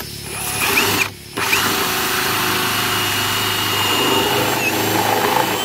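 Ryobi cordless drill running in reverse with a 2 3/4-inch bi-metal hole saw, cutting through a PVC downspout channel. It eases off briefly about a second in, then runs steadily and stops near the end as the hole is finished. Reversing lets the cutout drop into the channel instead of jamming in the saw.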